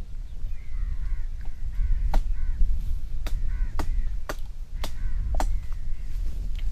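A run of short, sharp cracks about half a second apart through the middle, from twigs and branches as a man climbs through a tree. Behind them are faint bird chirps and a steady low rumble.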